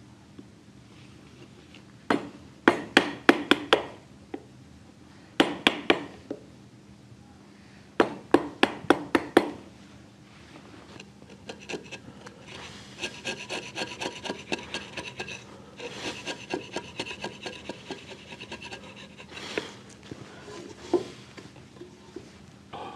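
Hammer striking a Japanese chisel (nomi) into wood in three quick bursts of blows, chopping out the waste between saw cuts to form a notch. About eleven seconds in, the chisel is pushed by hand, paring the notch's faces with a run of light scraping ticks.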